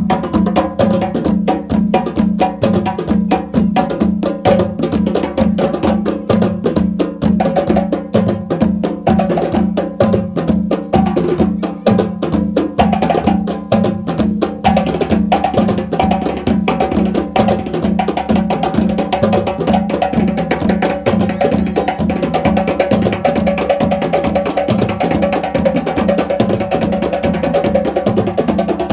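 African drumming: hand drums played in a fast, dense, continuous rhythm, with steady pitched tones sounding underneath.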